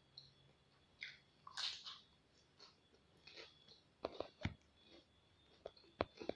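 Close-miked chewing of raw vegetables: irregular wet crunches and bites, with a few sharp snapping clicks in the second half.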